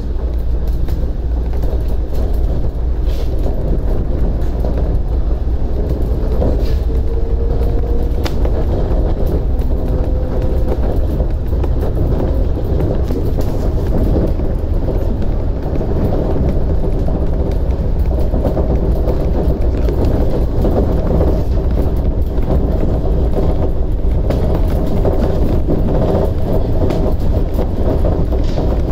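Shonan Monorail 5000 series suspended monorail car running at speed, heard from inside the cab: a steady low rumble from the rubber-tyred running gear, with a faint whine that rises in pitch a few seconds in.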